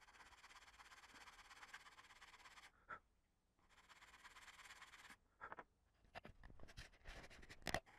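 Faint rasping of sandpaper rubbed by hand over a small balsa-wood piece, in two stretches of a couple of seconds each. Then come a few light taps and a sharper click near the end.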